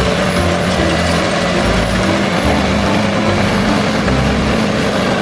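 Caterpillar D7R crawler bulldozer working, its diesel engine running steadily.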